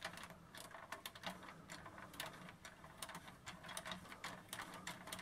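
Plastic rotor mechanism of a vintage GI Joe Adventure Team toy helicopter clicking faintly and rapidly as the main rotor spins. The mechanism, formerly stuck, has been freed with WD-40 and now turns freely.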